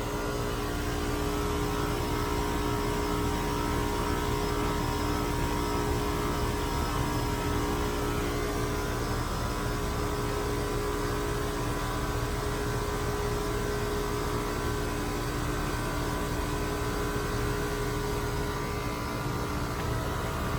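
1989 Carrier TECH 2000 heat pump outdoor unit running steadily: a compressor hum with a few steady tones over a rushing noise, unchanging.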